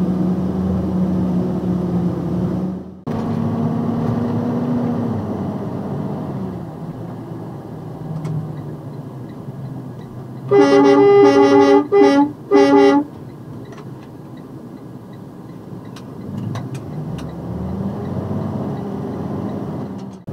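Box truck's air horn blown about halfway through in three blasts, one longer and two short, over the truck's engine and road noise.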